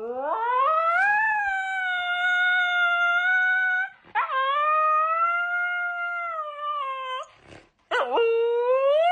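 Siberian husky howling: three long howls, each sweeping up in pitch and then held steady. There are short breaks about four seconds in and again a little past seven seconds.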